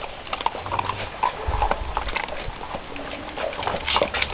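Several dogs eating dry kibble from metal bowls: a rapid, irregular run of crunching and clicking from teeth and bowls.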